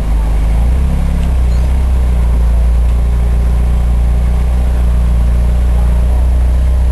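Ferrari 308 GTSi Quattrovalvole's V8 running at low revs with a steady, deep exhaust note as the car pulls slowly away.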